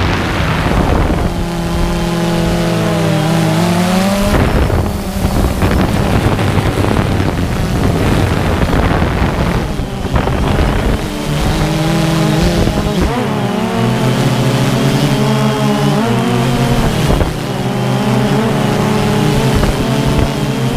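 Multirotor drone propellers buzzing, several close tones that rise and fall together as the motors change speed, with wind noise on the microphone.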